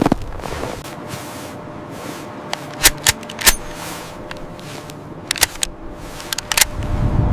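A run of sharp, irregular cracks and pops, several in quick pairs, over a faint steady hum.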